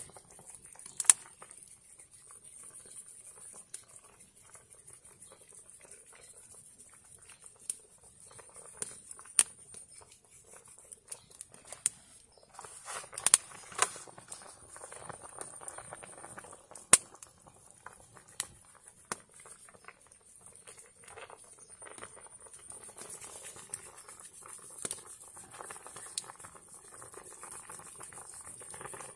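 Soup broth boiling hard in a large aluminium pan over a wood fire, a bubbling that thickens about halfway through and again near the end, with scattered sharp pops and crackles.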